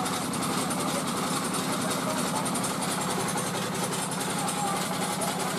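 Small stationary engine running steadily, driving a puffed-rice extruder through a belt.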